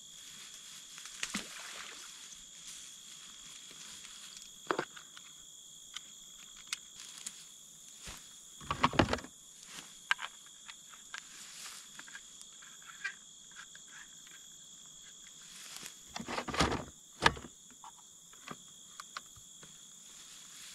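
Insects trilling steadily in the grass. Over them come scattered rustles and knocks from a garden hose and its fittings being handled and from steps in tall grass. The loudest clatter is about nine seconds in, with another cluster around sixteen to seventeen seconds.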